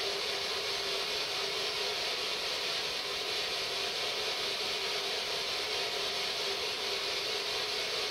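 Ghost box, a radio scanning through frequencies, giving out a steady hiss of radio static from its small speaker.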